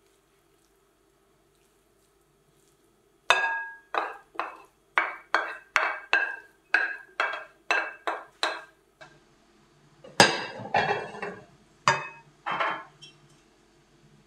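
A wooden spoon knocking against the edge of a glass plate about a dozen times, roughly two knocks a second, each with a short ring, as canned tuna is scraped and tapped off the plate. About ten seconds in comes a louder clatter, then two more knocks.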